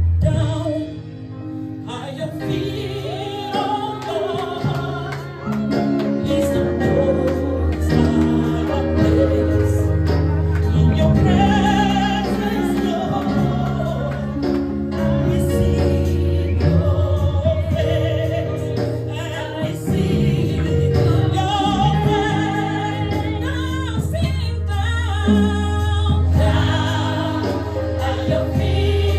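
Gospel choir singing a worship song live into microphones, the voices carried over sustained low instrumental chords.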